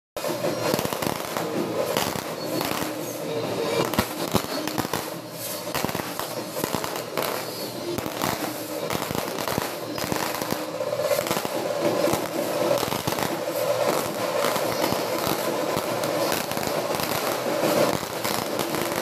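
Fireworks display: a continuous, irregular stream of bangs and crackling from aerial rockets and shells bursting overhead.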